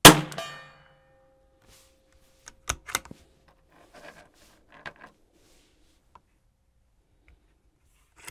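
A single shot from a CZ 457 Varmint MTR bolt-action .22 LR rifle firing CCI Standard Velocity, loud and sudden with a short ringing tail. About two and a half seconds later come a few sharp clicks of the bolt being worked, then quieter clicks and handling as the next round is loaded.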